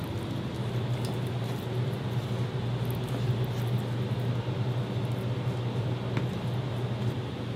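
Steady low hum of kitchen machinery, with a faint knife tap on a plastic cutting board about six seconds in.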